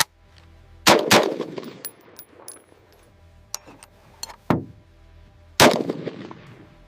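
Gunshots fired one at a time at uneven intervals, each ringing out briefly: two in quick succession about a second in, then more about three and a half, four and a half and five and a half seconds in, the last the loudest.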